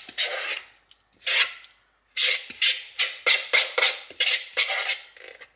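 A utensil scraping thick buffalo chicken dip out of a mixing bowl into a glass baking dish: short, sharp scrapes, a few spaced apart at first, then a quick run of about three a second.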